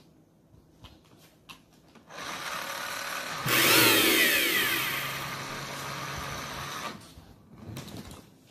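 Small electric motor of a remote-control toy car whirring for about five seconds, after a few soft clicks; it starts about two seconds in, is loudest for a second or two soon after, then runs on more quietly before stopping.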